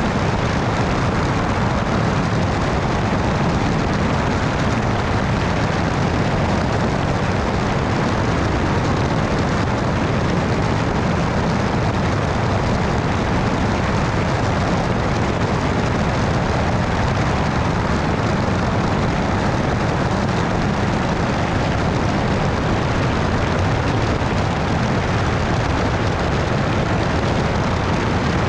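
Steady wind rushing over a camera mounted outside a Cessna 172 in flight at about 150 mph, mixed with the sound of the plane's engine and propeller running.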